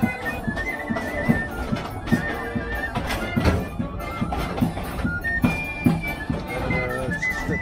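Traditional folk tune played on a melody instrument: held notes stepping up and down over a steady beat of about two thumps a second.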